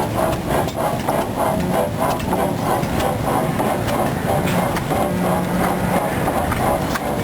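1895 Fairbanks Morse 15 hp hit-and-miss engine running, with a steady rhythmic clatter of about three to four knocks a second.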